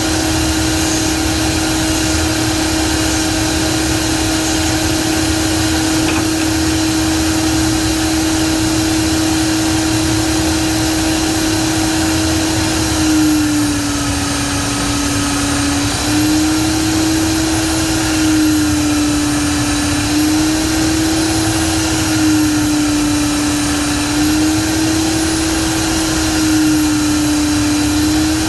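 Electric power tool motor running with a steady whine. From about halfway through, its pitch sags briefly several times and recovers, as the tool takes load while working wood.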